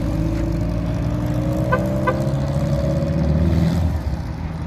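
Car engine running steadily, with its pitch drifting slightly. Two short beeps sound close together about halfway through, and the engine drops off a little near the end.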